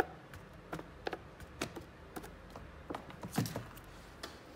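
Scattered light taps and knocks from hands moving cup-noodle containers and a tin can around a plastic basket, about half a dozen in all, with the loudest knock about three and a half seconds in.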